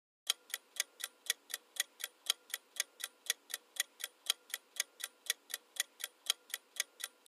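Clock-style ticking sound effect of a quiz countdown timer, an even run of sharp ticks at about four a second.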